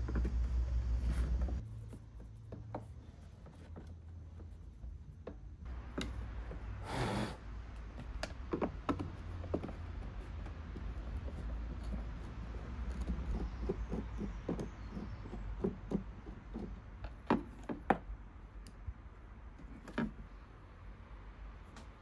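Scattered small clicks and taps of a screwdriver and loose screws in the plastic housing of a cordless lawnmower as the screws are taken out and lifted with a magnet, with a few sharper clicks a few seconds before the end. A low rumble runs for the first second or so.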